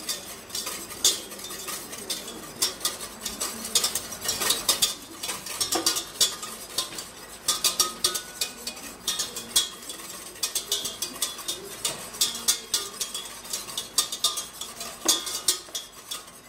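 Wire whisk rapidly clicking and scraping against the inside of a stainless steel saucepan, whipping egg yolks with passion fruit over gentle heat to build a hollandaise-style emulsion. The strokes come in quick uneven runs, several taps a second, with brief pauses.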